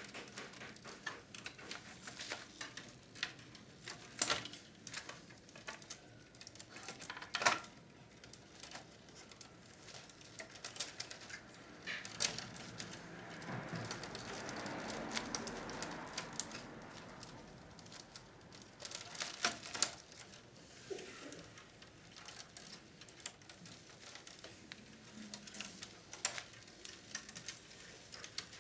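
Scattered small clicks and taps of tools and plastic and metal parts being handled while a vintage Philips radio cassette recorder is taken apart. There is a sharper knock about seven seconds in and a few seconds of softer continuous noise about halfway through.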